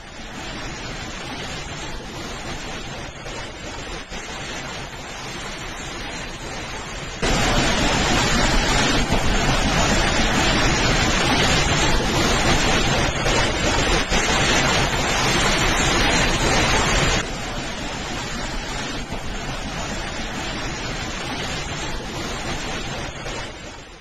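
Storm wind and heavy rain buffeting a phone microphone as a steady rushing noise. It jumps much louder about seven seconds in and drops back down about ten seconds later.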